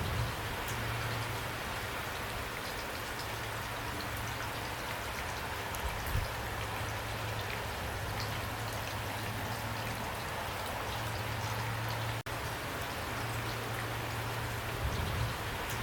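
Steady rain falling, an even hiss with scattered individual drops ticking, over a low hum that comes and goes. The sound cuts out for an instant about twelve seconds in.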